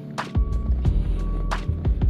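Background music with a steady beat: sustained bass and chord tones under regular drum hits, about two a second.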